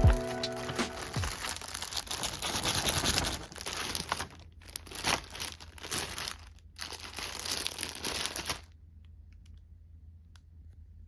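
Crinkling and rustling for about eight and a half seconds, with two brief pauses, then it stops, leaving faint ticks. The tail of the intro music fades out about a second in.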